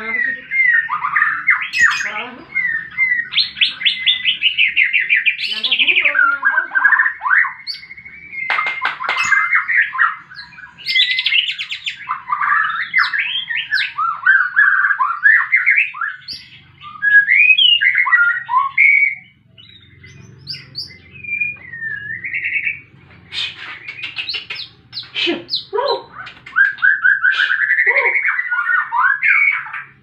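White-rumped shama (murai batu) singing a loud, varied aggressive 'fighting' song: fast runs of repeated notes, whistled phrases and harsh chattering calls, with a brief quieter lull a little past the middle.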